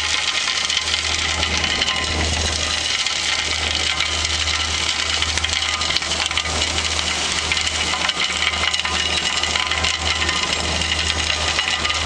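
Fatra railway track vacuum machine running: a steady low engine hum under a loud, even hiss of suction, with many small clicks scattered through it.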